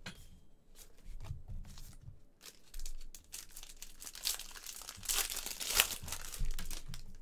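Foil wrapper of a baseball card pack being torn open and crinkled by hand, with crackling and rustling that is loudest from about four to six and a half seconds in.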